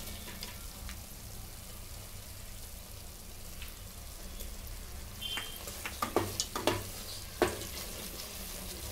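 Carrot halwa frying softly in a pressure cooker pot, a steady low sizzle. About halfway through, a spatula starts stirring and scraping against the pot bottom in a run of sharp strokes.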